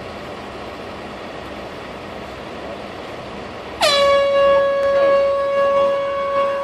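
Air horn sounding one long, steady blast that starts suddenly about four seconds in, dipping briefly in pitch at the start, over steady background noise. This is a demolition warning signal sounded before the blast.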